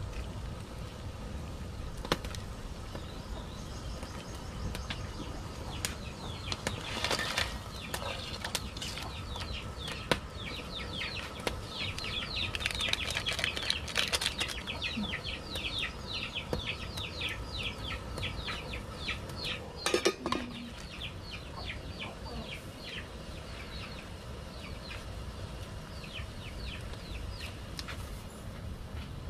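Pot of shrimp boiling over a crackling wood fire, with scattered clicks and knocks. Midway a bird calls in a fast run of short, high chirps for several seconds, and about twenty seconds in there is one louder sudden noise.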